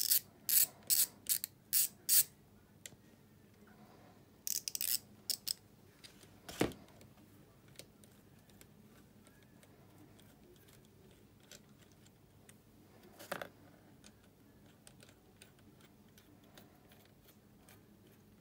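Ratchet wrench clicking in a quick run of strokes, about three a second, then another short run about four and a half seconds in, while undoing the fasteners of an ATV engine's cam-chain guide. A single knock about six and a half seconds in and another near thirteen seconds.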